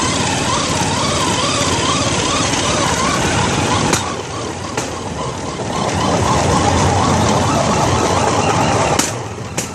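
A bamboo train (norry) running along the rails: its small petrol engine runs steadily under a loud rumble and rush of noise. Sharp clacks come in pairs about four seconds in and again near the end, as the wheels cross rail joints.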